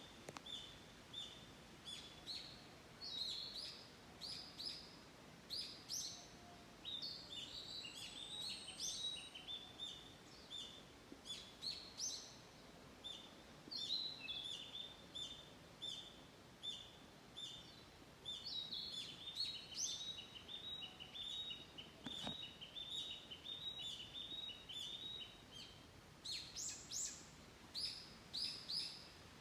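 Small birds chirping and singing, with quick runs of short, high, repeated notes that go on almost without a break.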